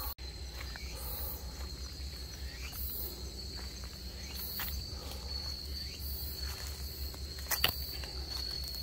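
Insects calling: a steady high trill with a buzzing pulse about every second and a half. A single sharp click comes near the end.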